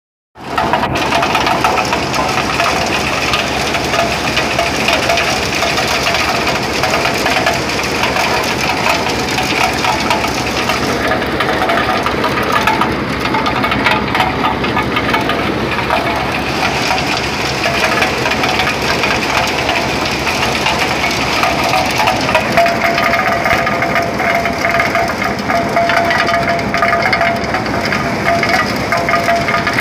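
Motorized corn sheller running steadily under load. Its engine hum is overlaid by a dense rattling crackle of cobs and kernels being threshed.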